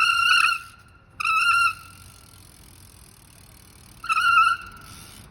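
Bicycle brakes squealing: a loud, high-pitched screech in three short bursts as the brakes are applied. The first burst ends about half a second in, the second comes at about a second and a quarter, and the third near the end. The squeal is far louder than normal, a fault the owner cannot explain.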